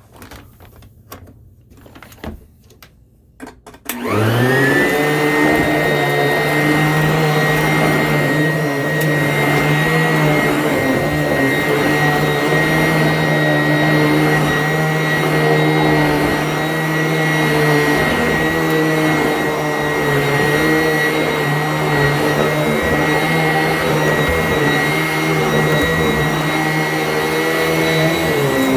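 A few light clicks and knocks, then about four seconds in a Sanitaire vacuum cleaner switches on. Its motor spins up within a moment and settles into a steady run with a high whine.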